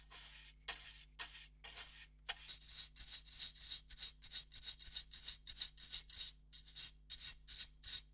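Quick rubbing strokes of a cleaning tool against a PS4 Pro's cooling fan and its surroundings, scratchy and faint. A few scattered strokes at first, then a steady run of about four a second from about three seconds in.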